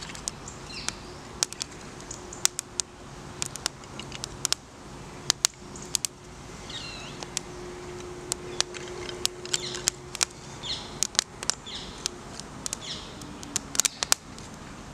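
Small fire of split kindling and shavings crackling, with sharp irregular snaps and pops as split sticks are laid on it. A bird chirps briefly several times.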